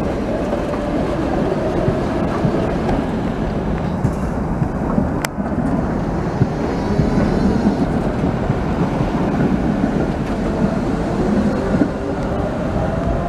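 Articulated Tatra KT8D5 trams passing close by on street track: a steady rumble of steel wheels on the rails with a faint whine, and one sharp click about five seconds in.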